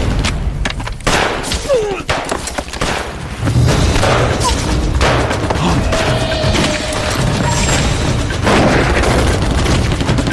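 Battle gunfire: many shots in quick succession mixed with heavy booms of explosions.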